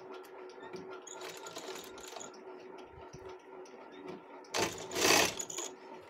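Straight-stitch sewing machine running as it stitches a piping strip: a steady hum with rapid ticking. A louder burst of noise about a second long comes near the end.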